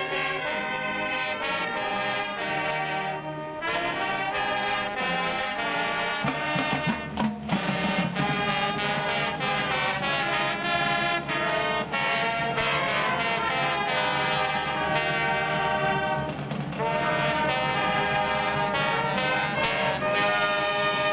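College marching band playing a brass tune, with trumpets and sousaphones over snare and bass drums. The low brass comes in strongly about six seconds in.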